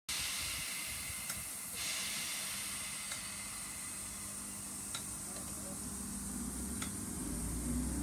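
ScotRail Class 320 electric multiple unit at the platform: a steady hiss with faint ticks about every two seconds, then near the end a low hum and rumble building as the train starts to pull away.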